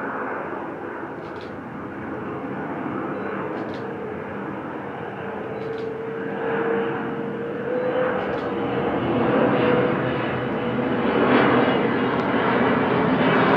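Boeing 767-300ER jet airliner on approach passing overhead: engine noise with a steady humming whine, growing steadily louder as the aircraft comes closer.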